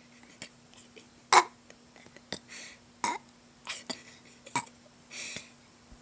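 A person burping in short bursts, the loudest about a second and a half in, with small throat clicks and breaths between them.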